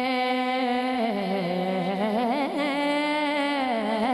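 A boy singing a naat, an Urdu devotional poem, unaccompanied into a microphone: one voice holds a long wordless note with vibrato. The note dips in pitch about a second in and climbs again near the middle.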